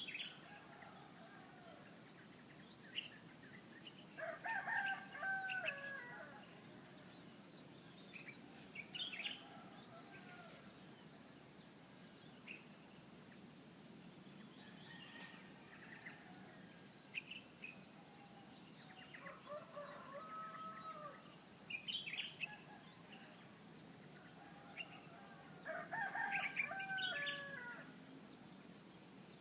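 A rooster crows three times, about four seconds in, again more faintly around twenty seconds, and near the end, with short bird chirps between the crows. A steady high-pitched insect buzz, like crickets, runs underneath.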